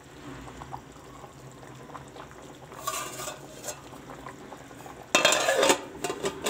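Pot of potato-and-pea curry boiling quietly, then a metal lid clattering onto the pot about five seconds in.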